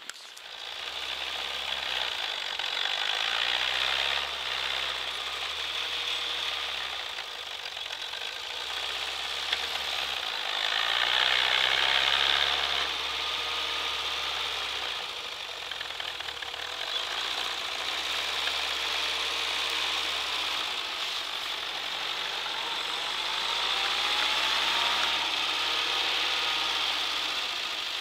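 1980 UAZ-469 off-roader's four-cylinder petrol engine working through deep snow, its revs rising and falling again and again. It grows loudest about halfway through as the vehicle comes close.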